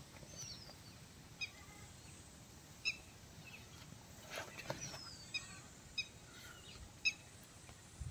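A bird calling: a short sharp chirp repeated at uneven intervals, roughly every second or so, with a couple of thin falling whistles. A brief soft rustle of the cloth bag comes a little past the middle.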